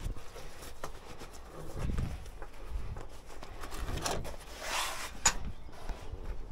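Handling noise as a sewer-jetter hose is pulled off its reel and carried off on foot: footsteps, rubbing and scattered clicks, with a brief swish followed by a sharp click about two-thirds of the way in.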